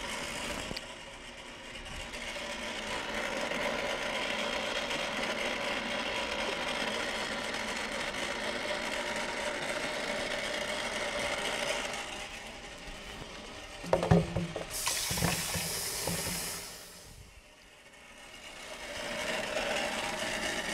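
Quart-size Cuisinart ice cream maker's motor running steadily, turning the paddle in the frozen bowl as it churns the ice cream base. About two-thirds through come a few knocks and a brief hiss.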